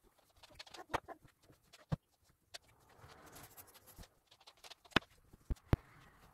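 Bed sheets and pillows rustling as a bed is made, with scattered sharp knocks and taps. The loudest are a few close together about five seconds in.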